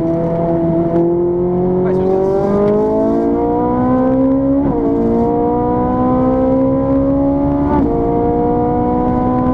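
Ferrari 458 Italia's V8 accelerating hard under full throttle, heard from inside the cabin. The engine note climbs steadily and drops sharply at a quick upshift about halfway through, then climbs again to a second upshift near the end.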